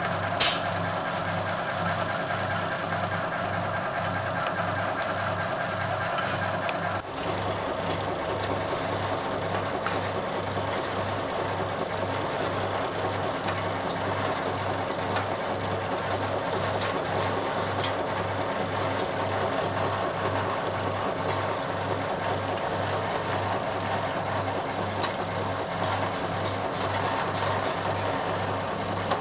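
Peanut skin-peeling machine running steadily, with a low pulse about one and a half times a second. About seven seconds in, a higher hum drops away and the sound turns to a rougher, noisier running.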